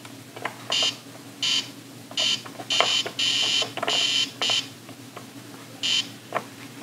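Etch A Sketch Animator's electronic buzzing tone, sounding in about nine short, irregular bursts as the drawing knobs are turned to move the cursor. Faint clicks fall between the bursts.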